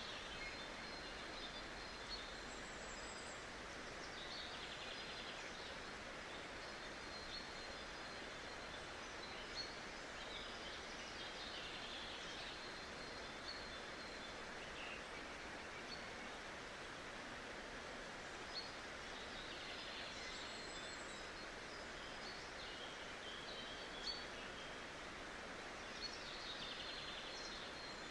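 Steady rush of flowing river water, with scattered faint, short, high bird chirps and a few soft ticks.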